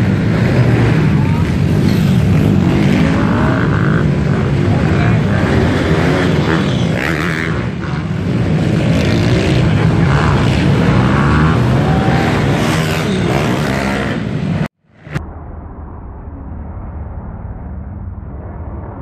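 Several pit bike engines racing in an indoor arena: small single-cylinder engines running and revving together, with voices mixed in. About fifteen seconds in, the sound cuts off abruptly and gives way to a quieter, muffled engine noise.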